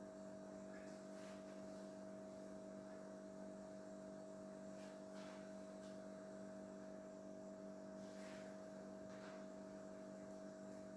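Faint steady electrical hum, with a few soft faint ticks.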